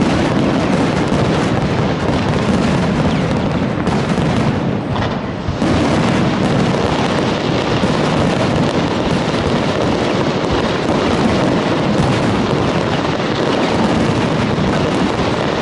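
Fireworks salute going off in a dense, continuous barrage of bangs and crackling, with a brief lull about four to five seconds in.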